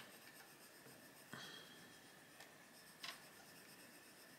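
Faint scratching of a Faber-Castell Polychromos coloured pencil shading on paper, with two slightly louder strokes about a second and three seconds in.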